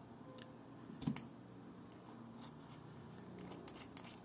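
Small clicks and scrapes of fingers and a tool working at the steel case back of a vintage Omega military wristwatch to open it. One sharper click comes about a second in, then a run of faint scratchy clicks near the end.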